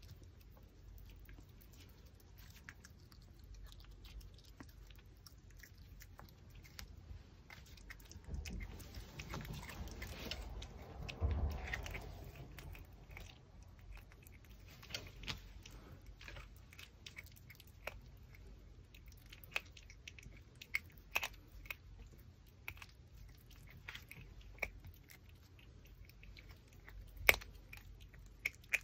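Pomeranian chewing and gnawing a raw pork backbone: scattered crunches and clicks of teeth on bone, busier around the middle, with one sharp crack near the end.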